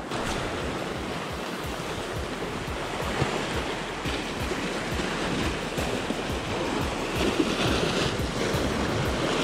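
Sea surf washing over shore rocks, under background music with a steady beat.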